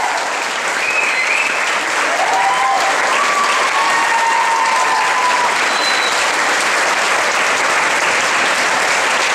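Crowd applauding steadily, a dense continuous clapping, with a few voices calling out over it between about one and five seconds in.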